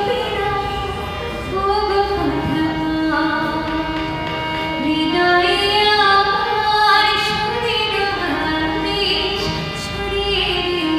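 A woman sings a slow melody into a microphone, accompanying herself on a harmonium whose reedy notes are held steadily under her voice.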